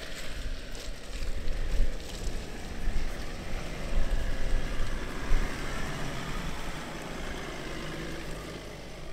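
Ineos Grenadier 4x4 driving slowly over rough, muddy ground, its engine running with a steady low rumble, and wind buffeting the microphone in uneven gusts.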